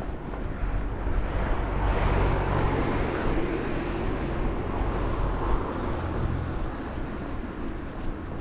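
A car passing by on the road. Its engine and tyre noise swells to its loudest about two seconds in, then slowly fades, over a steady low rumble.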